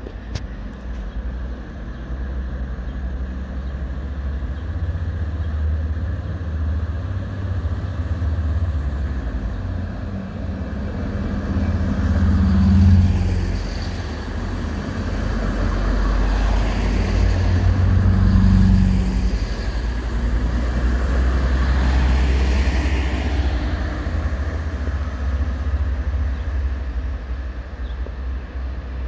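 Red diesel multiple unit running close past on its diesel engines, a steady low engine drone that swells twice, about a third and again about two-thirds of the way through, as each car goes by.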